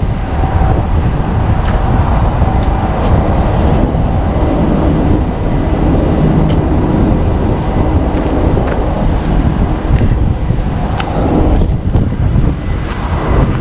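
Heavy vehicle running with a loud, steady rumble, wind buffeting the microphone.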